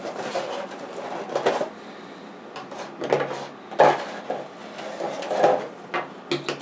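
Small cardboard boxes and plastic packaging being cut open and handled: irregular rustles, taps and clicks.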